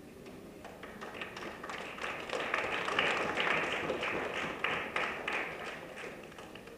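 Audience applauding: many people clapping, swelling over the first couple of seconds, holding, then dying away near the end.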